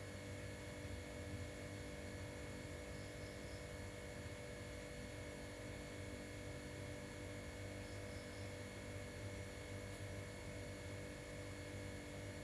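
A steady low electrical hum, with faint short high chirps in groups of three every few seconds.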